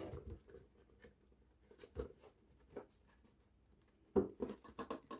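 A cardboard display box with a clear plastic window being handled and turned over by hand: scattered light taps and scrapes, with a louder cluster of knocks about four seconds in.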